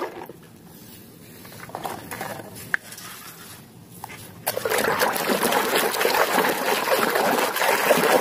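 A few faint plastic clicks as toy cars are picked from a pile, then from about halfway through a hand sloshing and splashing a muddy plastic toy van in a basin of water, a steady wash of water noise.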